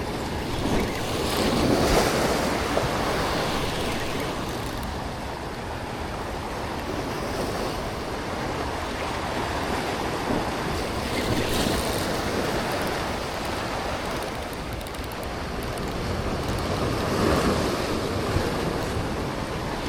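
Ocean waves and surf washing steadily, swelling louder twice, with wind noise on the microphone.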